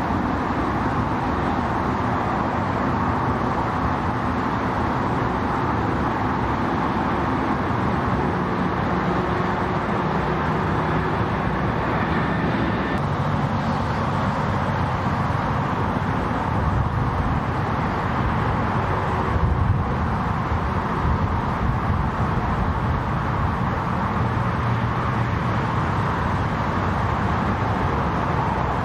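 Steady rumble of vehicle engines, even in level throughout.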